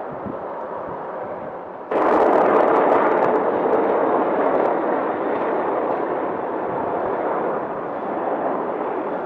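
A sudden loud blast about two seconds in, giving way to a steady rushing roar.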